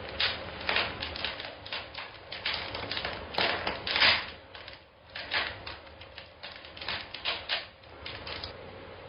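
A quick, irregular run of sharp taps and clicks, loudest about four seconds in, stopping shortly before the end.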